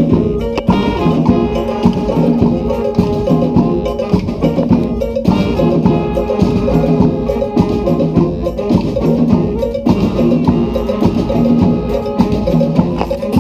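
Brass street band playing an Afrobeat groove, horns over a steady percussion rhythm.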